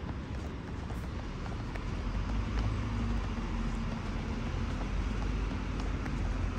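Steady low engine rumble that grows louder about two seconds in, with a low hum standing out briefly soon after.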